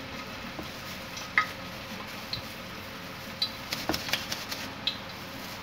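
Gloved hands working minced-beef kabab mixture in a steel bowl and pressing it into a small plastic lid: scattered light clicks and taps against the bowl and lid, about one a second, over a steady low hiss.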